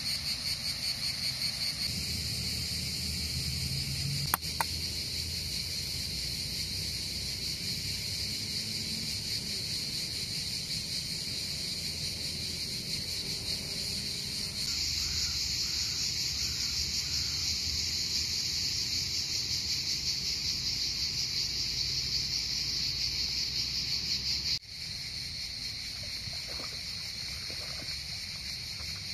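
A steady chorus of insects chirping in a fast pulsing trill, dropping in level a few seconds before the end. Two sharp clicks about four seconds in.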